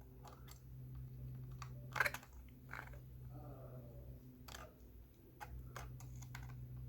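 Scattered light clicks and taps of tools and fingers on the plastic housing of a Clover Flex payment terminal as it is pried apart, with one sharper click about two seconds in, over a low steady hum.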